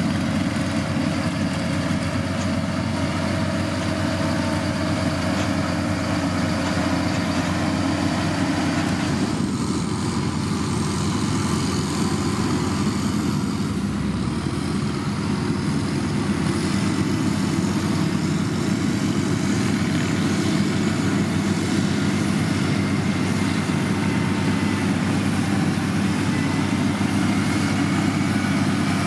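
Heavy diesel engine of a motor grader running steadily.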